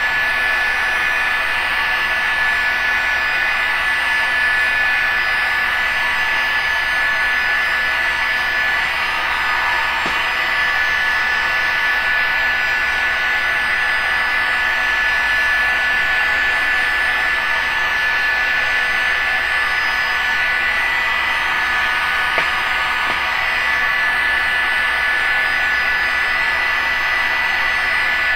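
Heat gun blowing steadily, a constant rush of air with a high whine, heating a piece of smoked plexiglass to soften it for bending.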